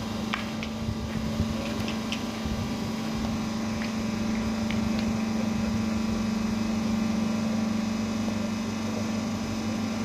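A steady low hum, with a few short, light metallic clicks in the first five seconds, from pétanque boules knocking together.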